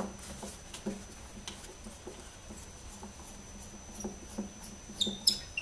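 Phillips screwdriver turning small screws out of a wooden case: light clicks and ticks as the screw turns, with a sharper click at the start and another about four seconds in. A few short, high squeaks come near the end.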